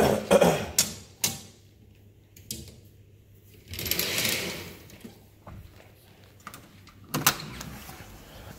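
Curtains and a sliding screen door being handled: a few clicks and knocks, a short rolling swish about four seconds in, and more clicks near the end.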